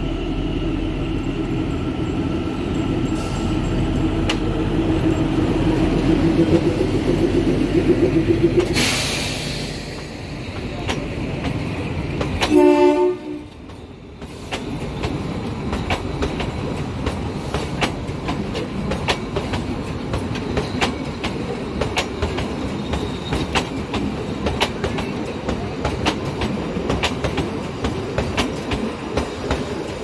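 Narrow-gauge diesel train: the locomotive engine runs with a steady hum, a brief hiss comes near nine seconds in, and a loud horn blast of about a second sounds near the middle. After that the train is moving, its wheels rumbling and clicking over the rail joints.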